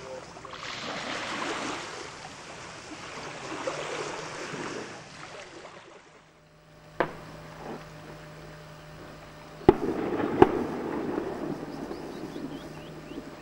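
Surf washing up a sandy beach. After about six seconds it gives way to a steady low hum broken by three sharp knocks, one about seven seconds in and two close together near ten seconds.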